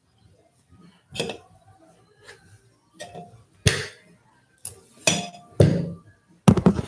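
Sharp knocks and clinks of small hard objects being handled and set down, a second or so apart, ending in a quick rattle of several together.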